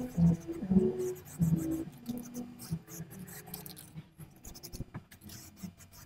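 An aerosol spray can hissing in short bursts again and again, with scraping and rubbing of hands and can against the truck's metal frame.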